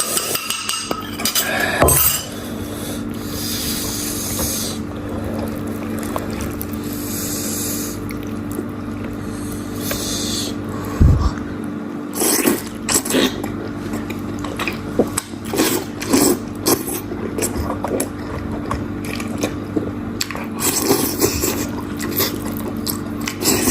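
Lamb soup being handled and eaten at close range: liquid splashing and dripping, with many small clicks of spoon or chopsticks against a bowl, over a steady low hum.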